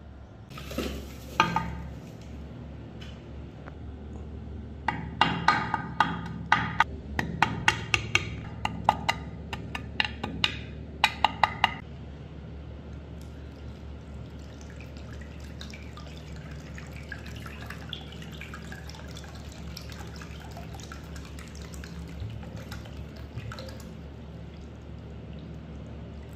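A quick run of sharp clicks and taps, then water poured steadily into a glass dish over a heap of white powder.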